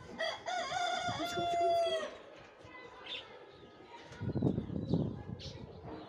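A rooster crows once, a long held call that ends about two seconds in. Later, leaves and branches rustle briefly as a hand pushes through the foliage.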